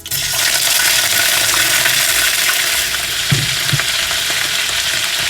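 Cauliflower florets going into hot refined oil: loud sizzling frying that starts suddenly and then holds steady. Two low knocks a little past the middle.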